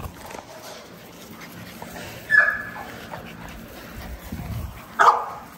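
French bulldog puppies whimpering and yipping at play: a short yelp a little over two seconds in, and a louder bark near the end.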